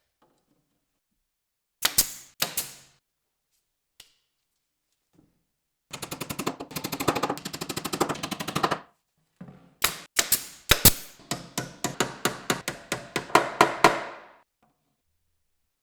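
Workshop tool knocking in rapid sharp strikes. A few strikes come about two seconds in, then a dense run of fast taps lasts about three seconds, then a run of louder strikes at about four a second.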